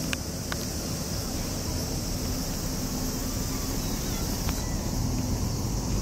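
Steady outdoor background noise with a low rumble, and a few faint clicks: two near the start and one about four and a half seconds in.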